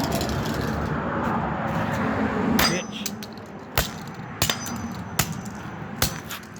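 Steady road-traffic noise that drops away a little under three seconds in, then five sharp clanging impacts about a second apart as plastic toy cars are smashed.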